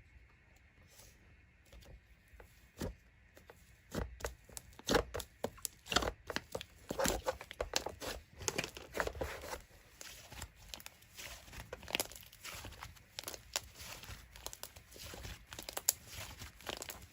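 Slime being squished and stretched by hand, making a dense, irregular run of sticky crackles and pops that starts after a few quiet seconds.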